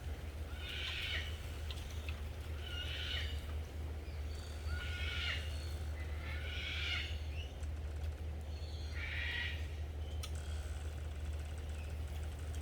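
An animal calling five times, each call about half a second long and spaced a second or two apart, over a steady low hum.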